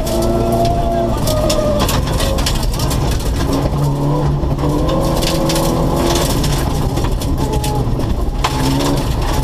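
Rally car engine heard from inside the cabin, pulling hard on a gravel stage, its revs climbing and dropping with the gear changes. Gravel crackles and rattles under the tyres and against the car.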